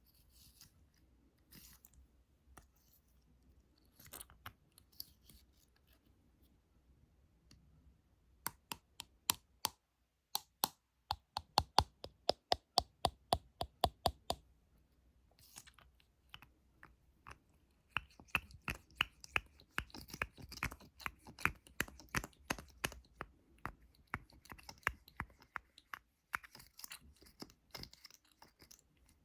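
Fingertip and fingernail tapping and scratching made for ASMR. A few faint clicks come first, then a fast run of sharp taps about a third of the way in, then after a pause a denser patter of taps mixed with scratching.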